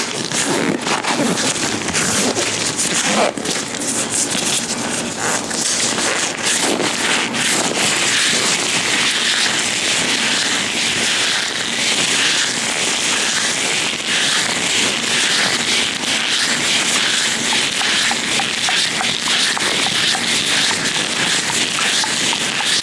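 Latex-gloved hands rubbing and handling right against the microphone, making a dense, continuous crackling.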